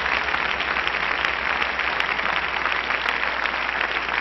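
Congregation applauding steadily, many claps blending into one even wash of sound.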